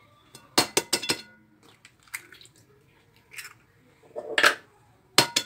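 Sharp taps and clicks against a glass mixing bowl, a quick cluster of three about half a second in and a pair near the end, with quieter clicks between: an egg being knocked and cracked open into a bowl of flour.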